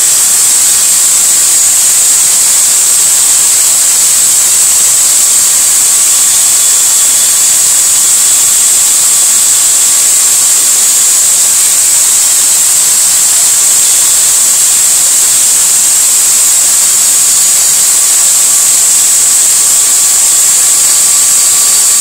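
Corded electric drill running steadily at high speed, spinning a Ford 302 exhaust valve chucked in it while wet 220-grit sandpaper is held against it to polish it. It makes a loud, even hiss with a faint steady whine.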